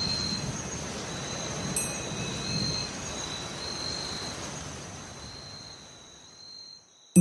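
Background soundtrack of high, chime-like notes over a steady rain-like hiss, fading out gradually to near silence near the end.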